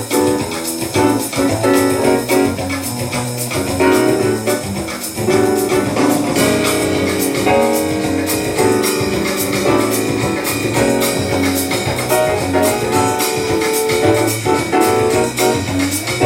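Recorded music played back over a high-end hi-fi system, with pitched melodic notes over a steady beat.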